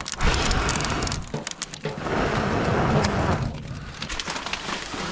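Crackling and rustling at an open wood-burning tent stove with a freshly lit log fire, with scattered sharp clicks.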